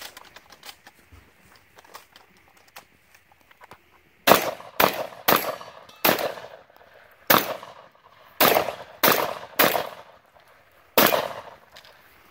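Shotgun fired nine times in a string starting about four seconds in, in quick groups of two or three shots about half a second apart, with gaps of a second or more between groups. Each shot trails off briefly. A few faint clicks come before the first shot.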